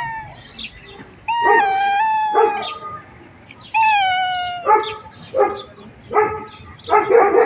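Tabby-and-white domestic cat meowing to beg for food: two long, drawn-out meows that fall slightly in pitch, then a quick run of short calls about every half second.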